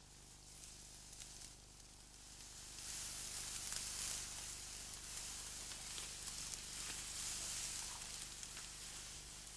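Tall grass swishing and rustling against legs and clothing as people push through it on foot. The rustling grows louder about three seconds in, with a few faint ticks.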